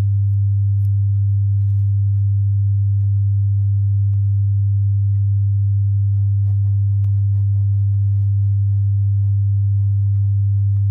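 A loud, steady, low pure-tone hum that never changes. Under it is the faint scratching of a pen writing on notebook paper.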